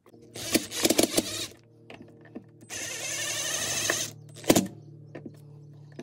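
Hand-work noises from fitting a wired wall switch into a plastic electrical box: rustling and scraping of wires and plastic, a dense scraping stretch of about a second near the middle, and a sharp click about four and a half seconds in. A faint held music chord sounds underneath.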